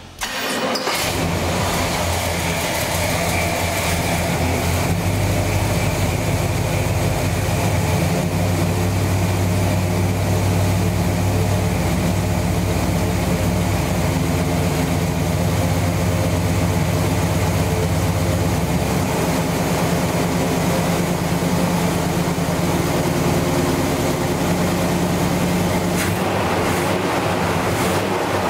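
Chevrolet 454 cubic-inch big-block V8 idling steadily, heard from the open engine bay. Its deep rumble eases a little about two-thirds of the way through.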